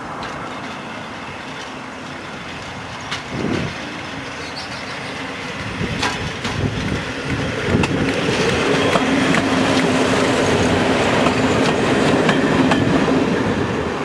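Class 127 and 114 hybrid diesel multiple unit approaching and passing close by: the steady drone of its underfloor diesel engines grows louder, and from about six seconds in the wheels click over the rail joints.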